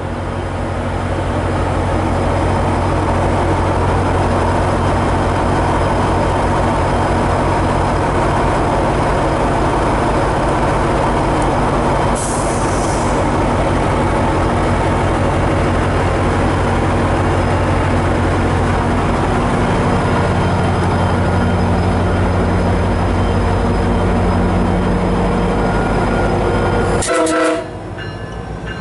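MARC commuter train's diesel locomotive running alongside, a steady low engine drone that deepens about two-thirds of the way through. A brief hiss of air about twelve seconds in, and the sound drops off suddenly near the end.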